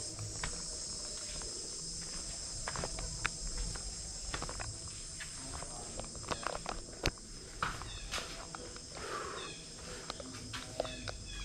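A steady, high-pitched drone from an insect chorus in tropical forest. Footsteps make scattered clicks over it, and a few short chirps come in the second half.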